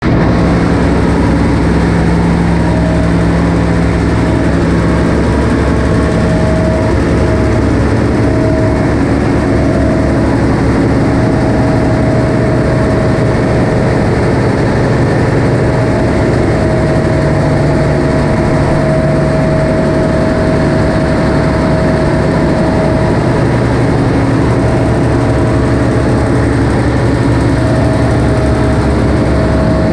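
Diesel engines running steadily in a cargo ship's engine room, with a generator engine close by: a loud, unbroken machinery din with a mid-pitched tone that fades in and out.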